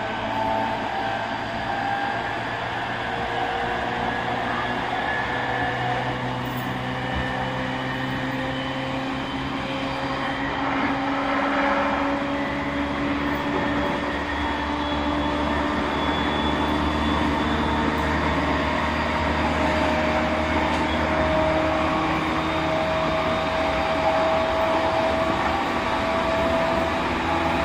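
Running sound of a JR East E231 series 1000-number EMU with renewed traction equipment. The motor and inverter whine rises slowly in pitch as the train gathers speed, over a steady low rumble of wheels on rail.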